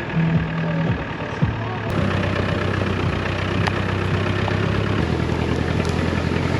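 The engine of a Land Rover Defender 4x4 running, settling into a steady low drone about a second and a half in.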